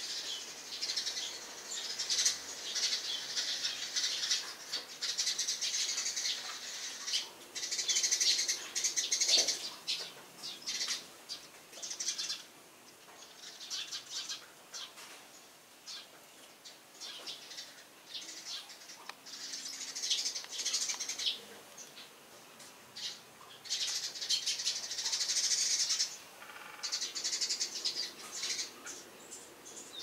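Eurasian tree sparrows chirping busily in bouts of rapid, high-pitched chirps separated by short pauses, quieter for a few seconds about halfway through.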